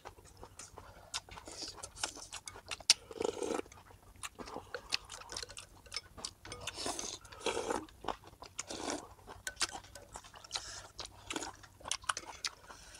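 People eating noodle soup: chopsticks and spoons clicking against ceramic bowls, with short bouts of slurping and chewing between the clicks.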